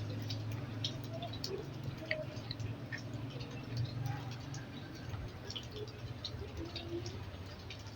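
Faint, scattered small clicks and ticks of hand tools working on a TV power board during component removal, over a steady low hum.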